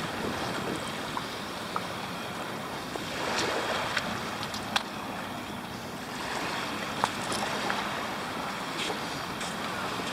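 Sea waves washing in on the shore, with wind on the microphone. The surf swells about three seconds in and again near the middle, and a few small sharp clicks sound over it.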